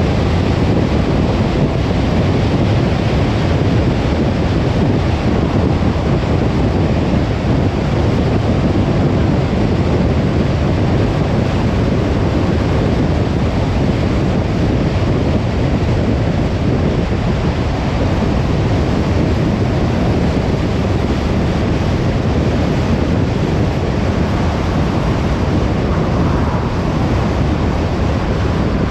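Steady road noise of a car driving: an even rush of tyre and wind noise that holds level throughout.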